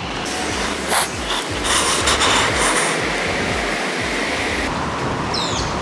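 Wind buffeting the microphone: a steady rushing noise over an uneven low rumble. A bird gives two short falling chirps near the end.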